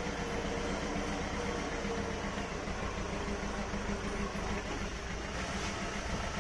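Small engine of a motorized farm carrier running steadily, with an even hum.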